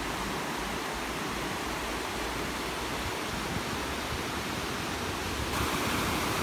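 Fast-flowing river rushing over rocks in rapids and small falls: a steady hiss of white water, stepping up slightly louder and brighter about five and a half seconds in.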